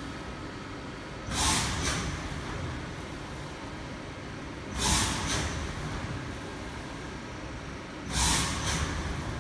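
Compressed air hissing in short bursts, about every three and a half seconds: each a loud hiss and then a shorter second one, three times in all. A steady low hum runs underneath.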